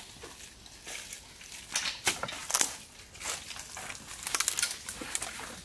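Feet pushing through dense, dry undergrowth: dry twigs snapping and crackling and stems brushing past in irregular cracks and rustles, loudest about two seconds in and again a little after four seconds.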